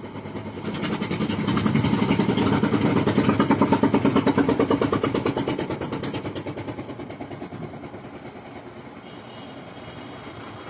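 A motor vehicle passing close by: its engine's rapid, even pulsing grows louder over the first few seconds, peaks, then fades away.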